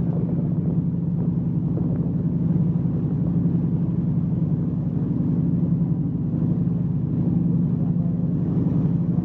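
Motor boat's engine running steadily under way, a low even drone with a steady hum.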